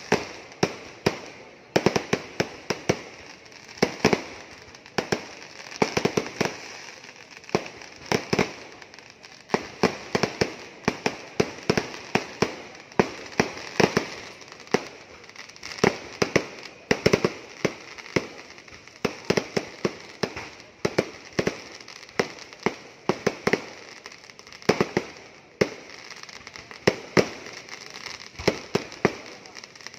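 Fireworks bursting in a rapid, uneven barrage of sharp bangs, several a second.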